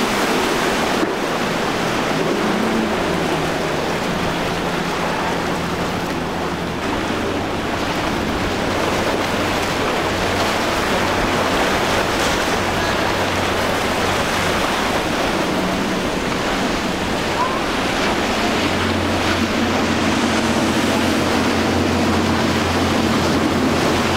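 Outboard-powered center-console boats running through rough inlet water: a steady engine drone under the rush of wake, spray and breaking surf, with wind buffeting the microphone. The engine drone grows stronger in the last few seconds as a boat passes close.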